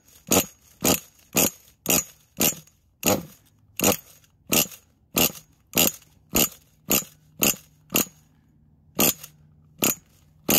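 Pull starter of a Losi 8 truggy's .28 nitro engine being yanked over and over, about two short pulls a second, the engine cranking without firing.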